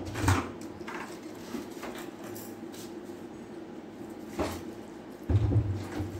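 Fingers mixing rice and dal on a steel plate: soft wet squishing with a few sharp scrapes and knocks of the hand against the metal, the loudest just after the start and near the end, where a duller thud comes with them.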